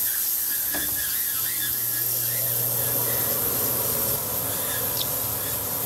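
Jewellery steam cleaner jetting a steady hiss over a freshly polished ruby earring, washing off leftover polishing compound, with a low hum joining about a second in.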